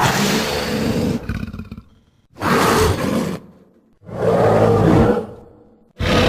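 A series of dinosaur roar sound effects: three separate roars of about a second each with short pauses between them, and a fourth beginning near the end.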